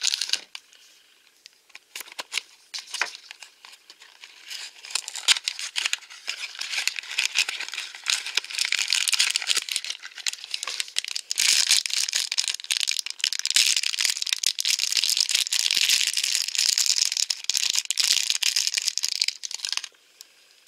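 A small cardboard toy blind box clicked open by hand, then the plastic packaging inside crinkled and torn open at length to get the figure out. The crinkling stops just before the end.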